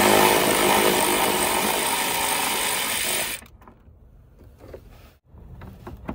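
A power ratchet runs steadily for about three and a half seconds, spinning out a fastener on the car's under-engine cover, then stops suddenly. A few faint clicks of handling follow.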